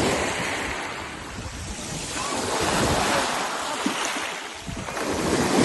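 Sea waves breaking and washing up a sandy beach, the surf rising and falling in surges, with wind buffeting the microphone.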